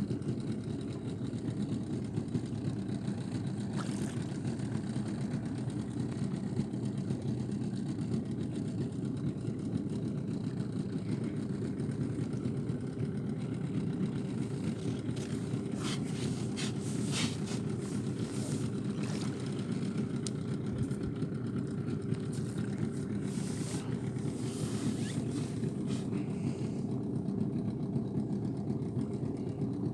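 A boat's motor running steadily. Several short bursts of hiss come in the second half.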